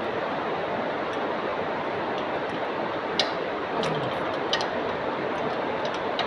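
Steady hiss of falling rain, with a few sharp ticks about three, four and four and a half seconds in.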